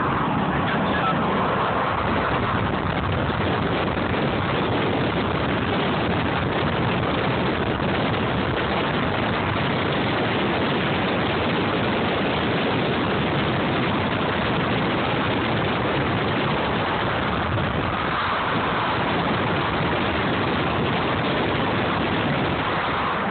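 Steady road and wind noise inside a moving car, an even rushing sound at a constant level.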